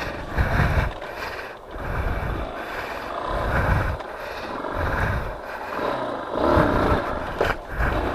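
Yamaha dual-sport motorcycle riding over rough grassland. Its engine swells and drops about once a second as the throttle is opened and closed.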